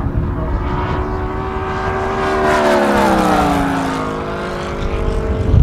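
Home-built 220 cc four-cylinder four-stroke V4 engine of a large radio-controlled model plane, driving a three-blade propeller in flight. Its steady note grows louder as the plane passes, then falls in pitch from about two and a half seconds in as it flies away. Wind rumbles on the microphone underneath.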